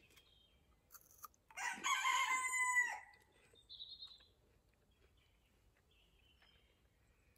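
A backyard chicken crowing once, a single drawn-out call about a second and a half long.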